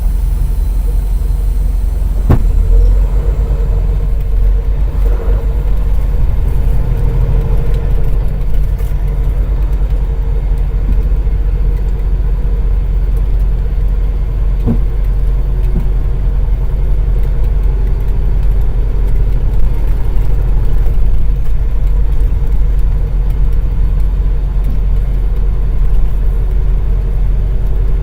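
Semi truck's Cummins ISX diesel engine running as a steady low rumble, with a sharp click about two seconds in and another about halfway through.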